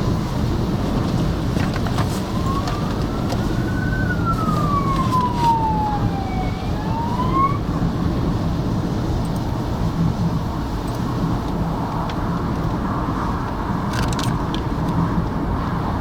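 An emergency vehicle's siren wails once, rising, then falling slowly and starting to rise again, from about two to eight seconds in. Under it runs a steady low rumble of strong wind and road traffic.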